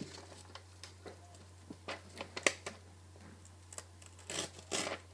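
Paper rustling and crinkling as a sheet is handled after a pocket-knife cut, with a few light clicks and taps, and two short rustles about four and a half seconds in.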